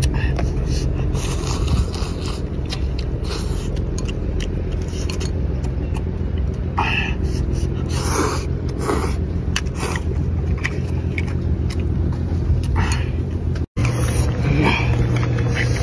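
A person slurps noodles and chews in short noisy bursts, with small clicks, over a steady low mechanical hum. The sound drops out for an instant near the end.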